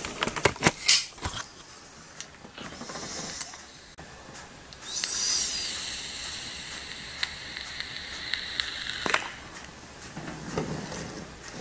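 A long draw on an iGo 4 e-cigarette: a steady hiss of air pulled through the tank while the coil fires, lasting about four seconds, then a breathy exhale of vapour near the end. A few handling clicks come in the first second or so.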